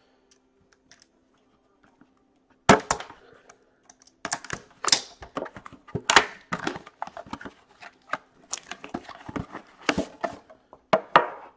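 Hockey card box and pack being opened and the cards handled. A sharp snap comes about two and a half seconds in, then irregular clicks, snaps and rustling of cardboard and packaging.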